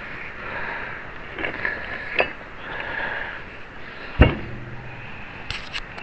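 Hand tools and metal parts being handled on a wooden workbench: a few light knocks and clinks, then one heavier thump about four seconds in.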